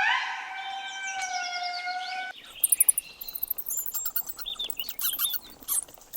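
Lemur calling in long, drawn-out wailing notes that rise at the start and then hold; the calling stops about two seconds in, and rapid high chirps and clicks follow.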